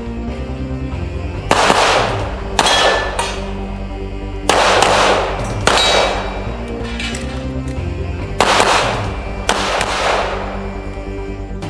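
Music with steady held low tones, broken by loud crashing hits that ring out, coming in pairs about a second apart, roughly every three seconds.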